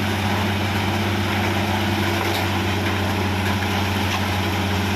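A vehicle engine running steadily at an even, low hum, with a constant background rush.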